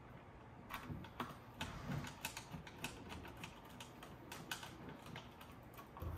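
Irregular light clicks and taps of small parts being handled as a cassette deck's tape transport mechanism is fitted back into place, a dozen or so over a few seconds.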